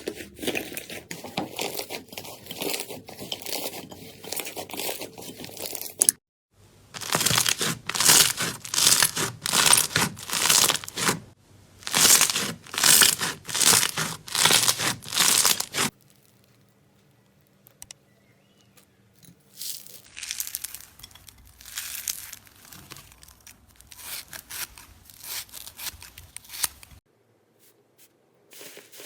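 Slime being squeezed and pressed by hand, giving crisp crackling and popping. It runs dense at first, then comes as about ten loud squeezes roughly one a second, and after a short pause as softer bouts.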